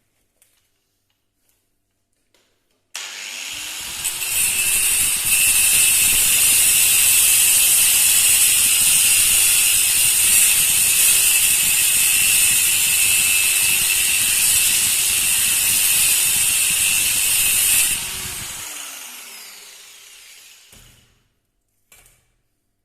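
An electric power tool starts about three seconds in, its motor rising in pitch. It runs loudly with a harsh high hiss for about fourteen seconds, then its motor winds down.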